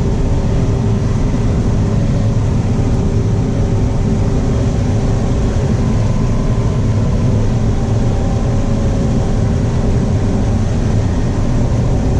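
Combine harvester running steadily while harvesting corn, heard from inside the cab: a constant low engine drone with a steady hum above it.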